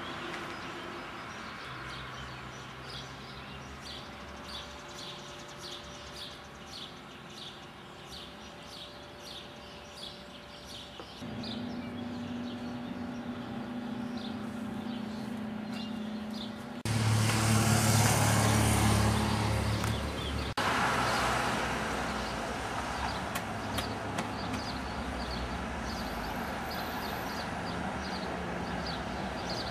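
Street traffic: a vehicle's engine comes in about a third of the way through, then a loud rush with a deep rumble as a vehicle passes close, cut off abruptly after about three seconds, leaving a steady traffic hum.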